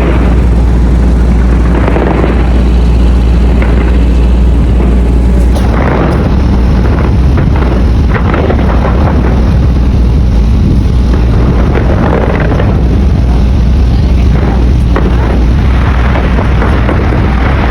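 New Year's Eve fireworks bursting in steady succession, a continuous low rumble with a fresh burst every couple of seconds, loud enough to push the recording to its limit.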